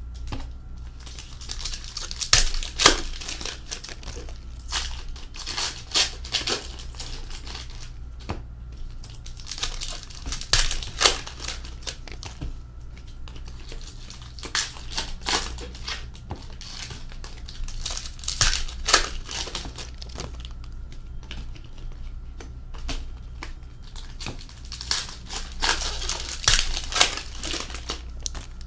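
2020-21 Upper Deck Series 2 hockey trading cards handled by hand: irregular bursts of flicking, sliding and crinkling as cards are flipped through and sorted, with short pauses between bursts.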